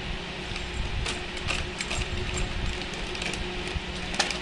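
Steady low machine hum in the room, with a few light clicks and taps as a plastic toy cow is handled.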